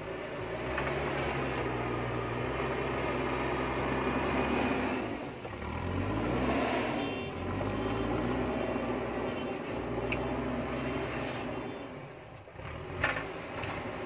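JCB backhoe loader's diesel engine running under load as the front bucket pushes soil and stones, its engine speed dropping and climbing again about halfway through. A single sharp knock comes near the end.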